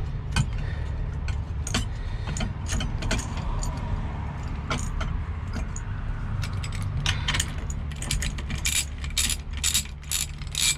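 Hand ratchet clicking as it unscrews the center nut on the steering shaft: a scatter of sharp metallic clicks and small jingles that come thicker near the end, over a steady low rumble.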